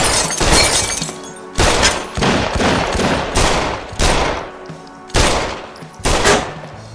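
Semi-automatic pistol fired shot after shot, about seven loud shots at uneven intervals, each followed by a short ringing tail.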